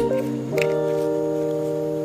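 Background music: held chords, with a new chord coming in about half a second in and sustaining.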